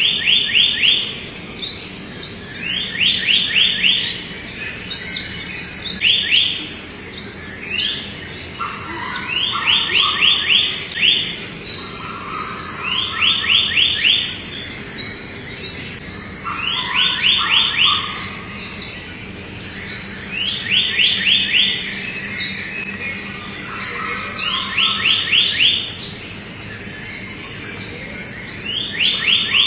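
Birdsong: one bird repeats a quick run of five or six falling chirps every three to four seconds, while other birds chirp higher and more scattered.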